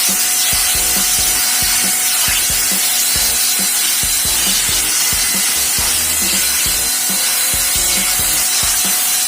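Sun Joe SPX6001C-XR 40-volt cordless pressure washer spraying at maximum pressure: a steady, loud hiss of the water jet over the faint whine of its brushless electric motor and pump.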